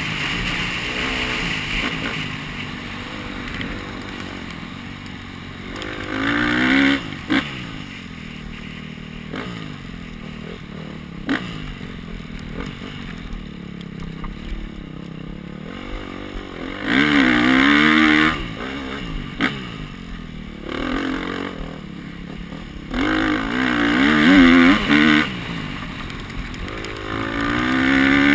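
Dirt bike engine at race pace, opening up in loud surges of throttle about 6, 17, 24 and 28 seconds in, the pitch rising and falling, and dropping back to a lower drone in between. A few sharp knocks of the bike over rough ground.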